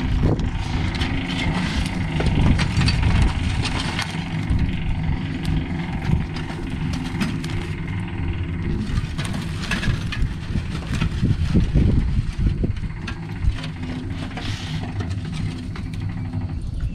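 An engine runs steadily close by, while charcoal briquettes clatter and scrape as they are tipped out of a metal chimney starter into a kettle grill.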